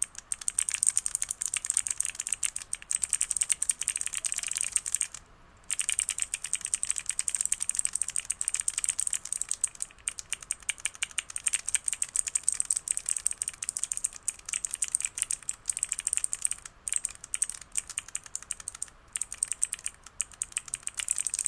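Clicky blue mechanical keyboard switches in a keycap clicker keychain being pressed rapidly and continuously, a fast run of sharp, high clicks, with brief pauses about five and ten seconds in and near the end.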